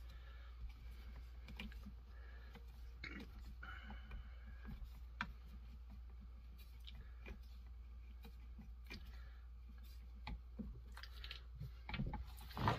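Scattered light clicks and taps of hands fitting and tightening small parts on a Poulan Pro 255 chainsaw's plastic housing, busier near the end, over a steady low hum.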